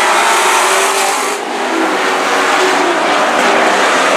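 Dirt-track stock race trucks running their engines at racing speed around the oval, several engines blending into one loud steady drone with a short dip about a second and a half in.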